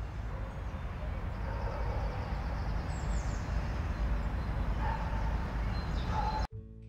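Outdoor ambience: a steady rushing noise with a heavy low rumble of wind on the microphone and a few faint animal calls. It cuts off suddenly near the end, and acoustic guitar music begins.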